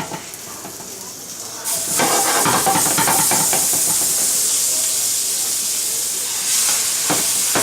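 Hot frying pan with butter spread sizzling: a loud, steady hiss that starts suddenly about two seconds in, with a few light clatters of pan handling.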